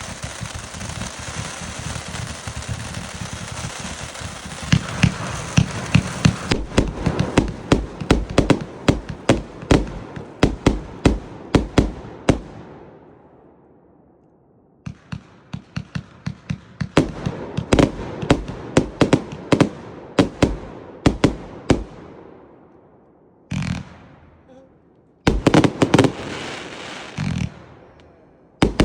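Multi-shot firework cake firing: several seconds of dense crackling hiss, then volleys of sharp shots at roughly two a second. The volleys come in bursts with short lulls between them, each burst trailing off into crackle.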